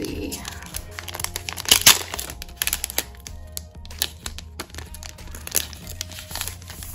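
Packaging crinkling and crackling in short bursts as a boxed item is handled and unwrapped, the sharpest crackles about two seconds in, over quiet background music.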